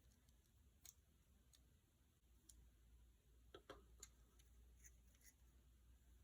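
Near silence with a few faint, scattered clicks of small plastic robot-kit parts being handled and fitted together, two of them in quick succession about three and a half seconds in.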